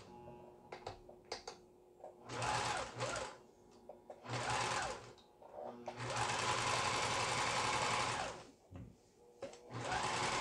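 Riccar BL3800 household sewing machine stitching in stop-start runs: two short runs of about a second each, then a longer run of about two and a half seconds, starting up again near the end, with a few light clicks in the first pause. The machine is being test-sewn after repair.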